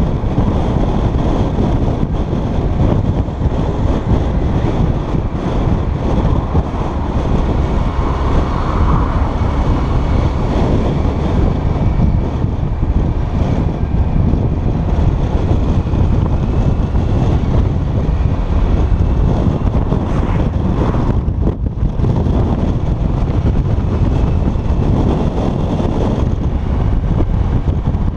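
Heavy wind buffeting the microphone of a motorcycle in motion at road speed, with the bike's engine and tyre noise running steadily underneath.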